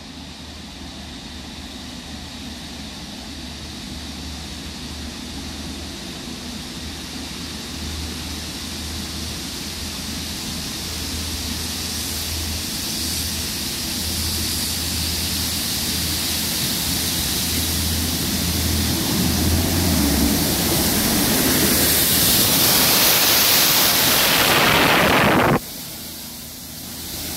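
A Network Rail Multi-Purpose Vehicle approaching and passing close by. A diesel engine drone sits under a rushing noise that grows steadily louder, sweeps down in pitch as the leading power car goes past near the end, and then falls away sharply as the tank units follow.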